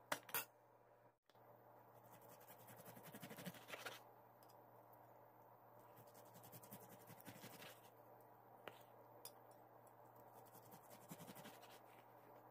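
Faint sawing strokes of a serrated knife cutting through cooked tri-tip steak and scraping on a plastic cutting board, in two spells of about two seconds each, with a few small clicks of knife and fork.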